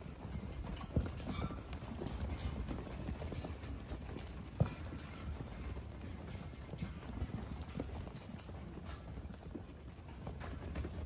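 Hooves of a flock of second-cross lambs walking and trotting over bare dirt: a continuous scatter of soft patters and clicks, with a sharper knock about a second in and another a little past halfway.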